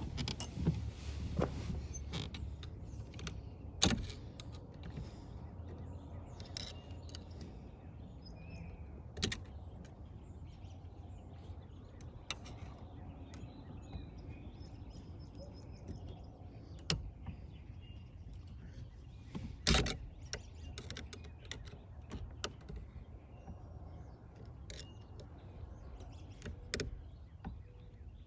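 Scattered clicks and knocks of handling, the loudest about four seconds in and again near twenty seconds, over a low steady hum.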